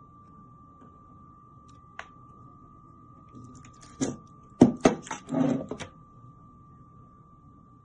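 Handling noise from a shrink-wrapped shelf-rack pack being moved: a light click about two seconds in, then a quick cluster of sharp knocks and rustling plastic about four to six seconds in. A faint steady high tone runs underneath.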